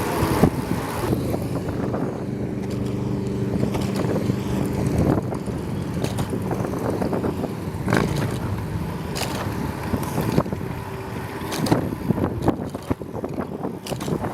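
Ride noise from a bicycle on a city street: a steady rumble of road and air, with a low steady hum for a few seconds near the start and scattered clicks and rattles.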